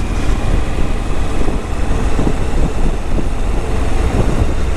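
Suzuki V-Strom 1000 V-twin motorcycle riding along at steady town speed: engine running under a constant rush of wind on the bike-mounted camera's microphone.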